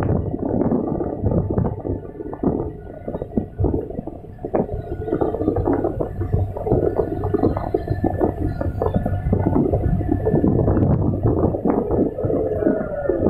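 Komatsu hydraulic excavator running under load, heard from inside the cab: a steady low engine rumble with hydraulic whine and irregular knocks and scrapes as the bucket trims and scoops soil on a slope.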